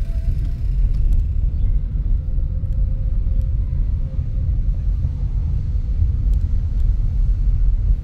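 A car being driven: a steady low rumble of engine and road noise.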